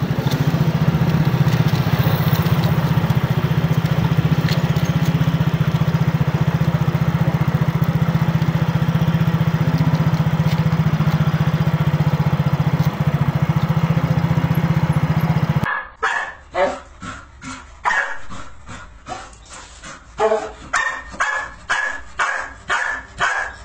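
A steady, even low drone for about the first fifteen seconds; then, after a cut, a bull terrier barking over and over, about two barks a second.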